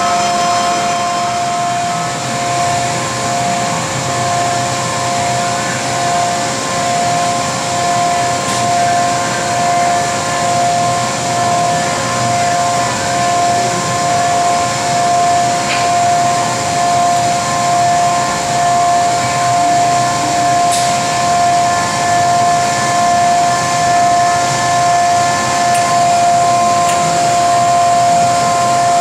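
Steady drone of powered-up industrial machinery: a constant high whine over a low hum, with a few faint ticks.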